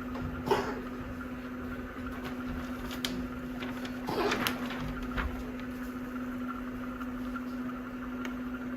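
A dog coughing, brought on by massage of its trachea: one short cough about half a second in and a longer cough around four seconds in, over a steady electrical hum.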